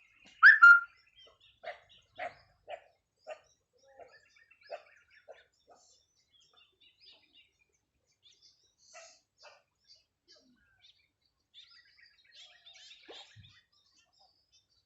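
A bird calling: one loud squawk about half a second in, then a run of short, evenly spaced notes, about two a second, for a few seconds, with faint chirps later.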